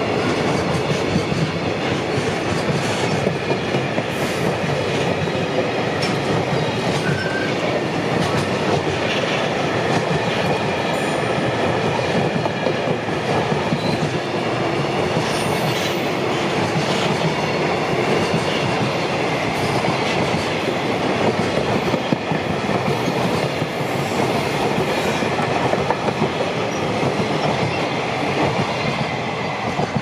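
A long freight train of container wagons rolling past at close range, a steady rush of wheel-on-rail noise; it drops off at the very end as the last wagon clears.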